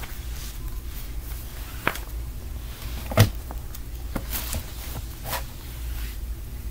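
A few short knocks and clicks, the loudest about three seconds in, over a steady low hum.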